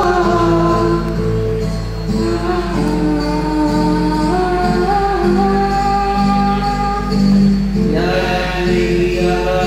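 Mixed group of male and female voices singing a slow song together into microphones over a PA, in long held notes, with guitar accompaniment. A steady low hum runs underneath.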